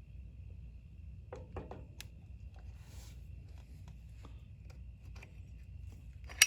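Metal hub and ratchet-pawl parts of a walk-behind tractor wheel being handled and fitted together: scattered faint clicks and rubbing, then one sharp metallic click near the end.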